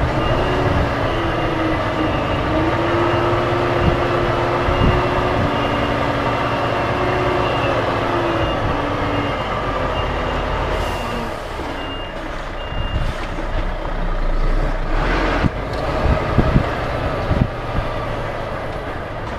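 Lorry's reversing alarm sounding steady, evenly spaced beeps over the running diesel engine as the truck backs up; the beeping stops about two-thirds of the way through.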